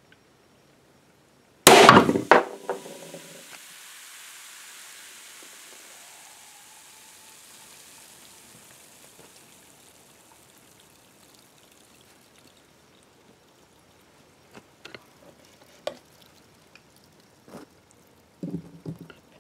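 A sealed aluminium soda can bursting open under a red-hot nickel ball: a sudden loud pop and spray about two seconds in, then hissing soda that fades over several seconds. A few faint knocks and clicks follow near the end.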